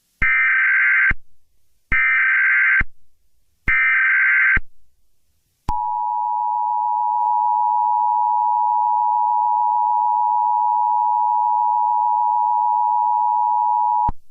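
Emergency Alert System tones: three short bursts of warbling digital header data, each just under a second with short gaps between them. After about a second's pause comes the steady two-tone EAS attention signal, held for about eight seconds and cutting off suddenly. This sequence is the start of an emergency alert broadcast.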